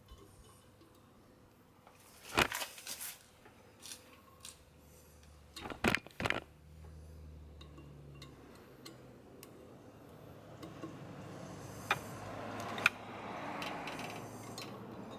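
Handling noise from an aftermarket car horn and its wiring: scattered sharp clicks and light metallic clinks as the horn, its metal bracket and crimp spade connectors are worked by hand, in small clusters a couple of seconds in, about six seconds in and near the end.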